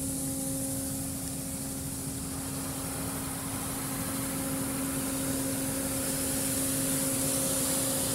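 Automatic car wash's spot-free rinse spraying water over the car, heard from inside the cabin: a steady hiss of spray over a constant hum, growing slightly louder over the second half.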